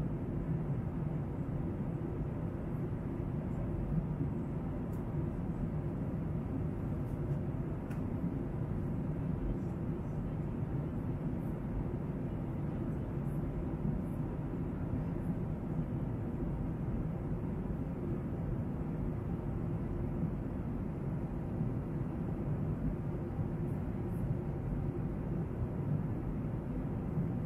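Steady low cabin noise of an airliner in flight, engine and airflow heard from inside the passenger cabin.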